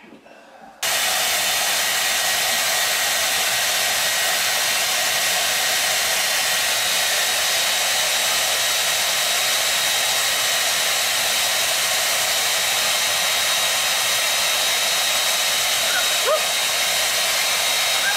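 Handheld hair dryer blowing with a steady, loud hiss, starting abruptly about a second in. Two short rising squeaks near the end.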